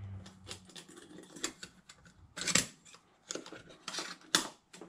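Gear being handled and packed into a backpack: scattered light clicks, taps and rustles, with sharper knocks about two and a half and four and a half seconds in.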